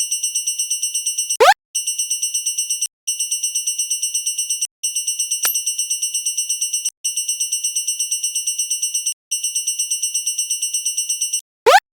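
Electronic railroad crossing warning bell ringing fast, about eight high-pitched dings a second, in runs broken by short gaps. A quick rising sweep cuts in about a second and a half in and again near the end.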